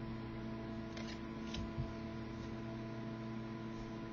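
Steady electrical mains hum, with a few faint soft ticks from hockey cards being handled and shuffled.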